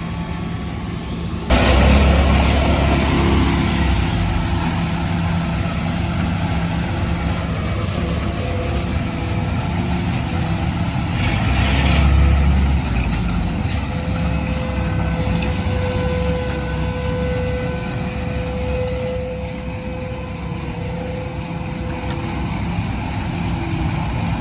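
Heavy truck engine running steadily. It gets louder about a second and a half in and swells again around twelve seconds, with a steady whine in the middle stretch.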